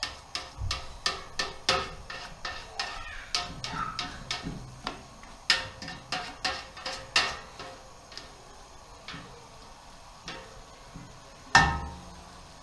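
A metal spoon knocking and scraping against a large stainless steel stockpot while stirring browned onions loosened with a splash of water. The knocks come irregularly, several a second at first, then thin out, with one louder knock near the end.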